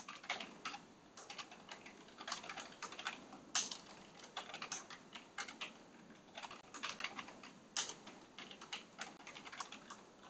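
Typing on a computer keyboard: irregular runs of key clicks, several a second, with brief pauses between bursts.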